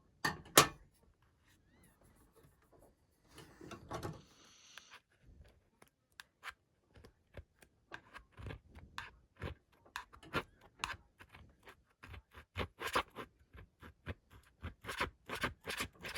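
Scraping and scratching at sticky sticker residue on a tablet's plastic case: a sharp click near the start, a longer scrape around four seconds in, then a steady run of short, irregular scratches and clicks.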